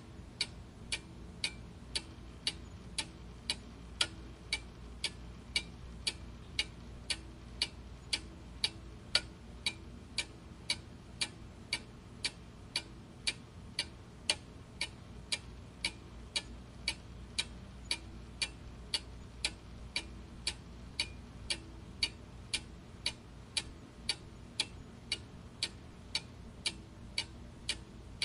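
Clock ticking steadily at about two ticks a second, each tick a sharp click, over a faint low hum.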